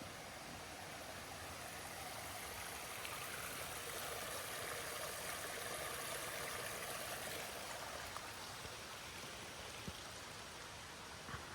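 Running water of a stream, a steady rushing that grows louder in the middle and fades again, with a couple of faint clicks near the end.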